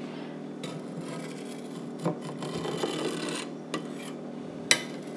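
Long metal knife blade scraping and scratching along the bottom of a speckled nonstick pot as it cuts through set goat-milk curd: a steady rasping scrape, with one sharp click about four and a half seconds in.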